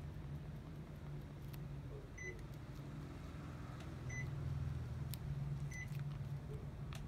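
Split air conditioner indoor unit giving three short high beeps about two seconds apart, its acknowledgement of signals from the remote. A few sharp clicks are heard between the beeps, over a steady low hum.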